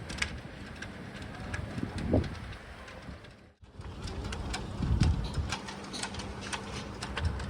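Strong wind buffeting the microphone in gusts, with crackling, over the noise of the sea. The sound cuts out briefly about halfway through.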